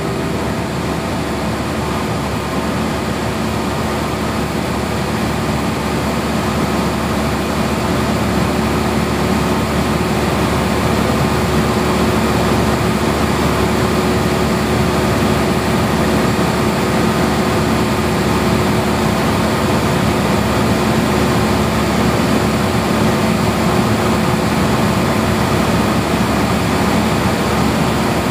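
Steady drone of a Cessna light aircraft's piston engine and propeller in level cruise flight, with a constant rush of airflow.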